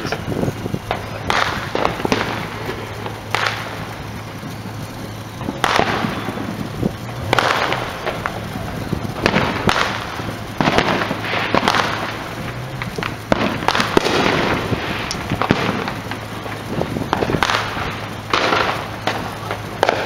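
Fireworks and firecrackers going off around the neighbourhood: a scattered run of sharp bangs at irregular intervals, roughly one a second, each trailing a short echo.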